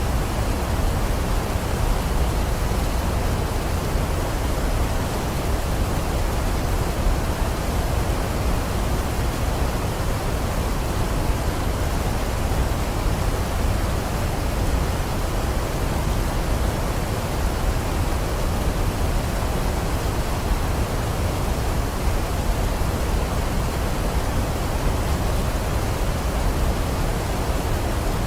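Waterfall pouring, a steady full rushing of water with no breaks, deepest in the low end.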